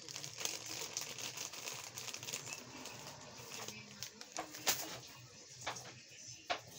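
Crinkling and rustling, as of plastic or paper being handled, with a few sharp clicks and taps.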